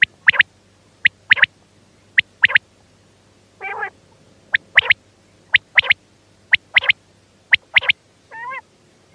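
Quail calling: repeated short, sharp, high three-note phrases, one note then a quick pair, about once a second. A longer, lower call breaks in twice.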